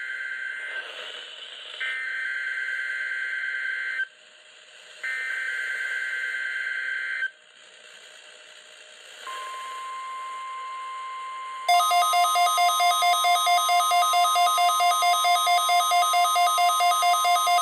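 NOAA Weather Radio Required Weekly Test heard through weather radios over static: three bursts of warbling SAME digital header data, a pause, then the steady 1050 Hz warning alarm tone. About twelve seconds in, a radio's own pulsing alert alarm sounds over it, louder, at about four beeps a second.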